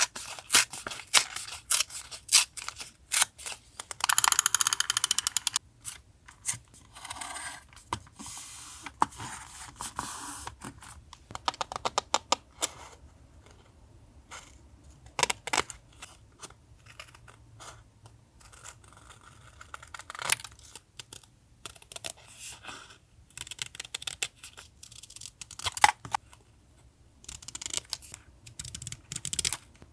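Paper crafting sounds of journal collage work: sheets and stickers handled and rustled, with many short clicks and taps. There is a rasping stretch of about a second and a half about four seconds in.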